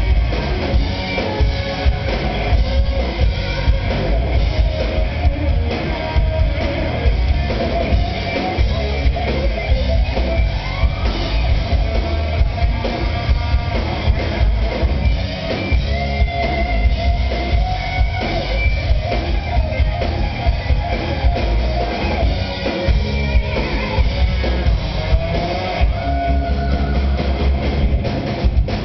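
A rock band playing live and loud: electric guitar lines with held, wavering notes over heavy bass and a pounding drum kit, with no vocals in this stretch.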